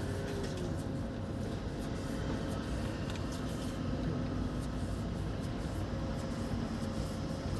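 Steady low rumble with a faint constant hum and light hiss inside a truck cab; there are no distinct events.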